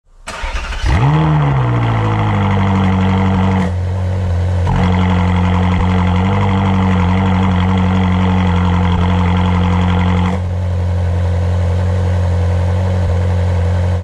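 Ferrari 458 Spider's 4.5-litre naturally aspirated V8 starting at the exhaust tailpipes: it catches with a quick rev flare, then settles into a steady idle. The sound thins out briefly about four seconds in, fills out again a second later, and thins once more near ten seconds.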